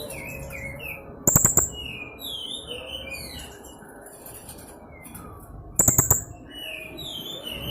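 Young blue-crowned hanging parrot (serindit) calling: runs of short squeaky notes that slide downward, broken twice by loud clusters of sharp, shrill clicks, about a second in and near six seconds.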